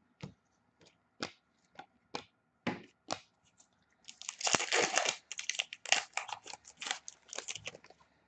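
About eight short sharp clicks, roughly two a second, as cards are handled, then a card pack wrapper being torn open and crinkled for about four seconds.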